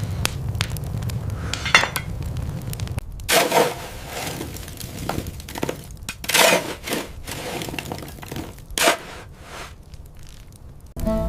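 A low steady rumble, then about nine irregular sharp clinks and cracks of hard objects striking, each with a short ring.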